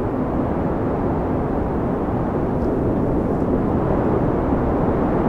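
Wind in a heavy snowfall: a steady, low rumbling noise with no distinct events.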